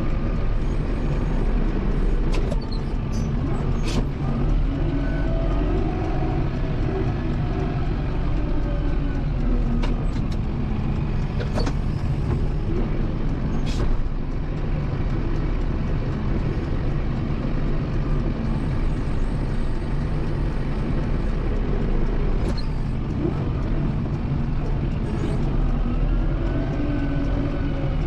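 Kubota M7060 tractor's diesel engine running steadily under load while pushing snow, its pitch rising and falling a few times as the revs change. Sharp clicks or knocks come now and then.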